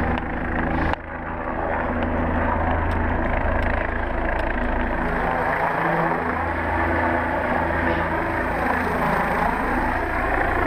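Helicopter running close by: a loud, steady engine and rotor hum with a slight wavering in pitch.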